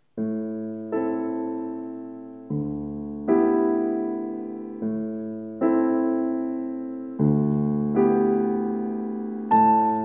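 Slow solo piano music: sustained chords struck one after another, each left to ring and fade before the next.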